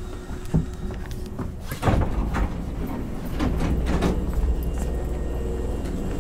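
Hankyu 3000 series commuter car stopped at the terminus. About two seconds in, its sliding passenger doors open with a sudden loud rush among scattered clicks and knocks, and a steady low hum from the car sets in a second or so later.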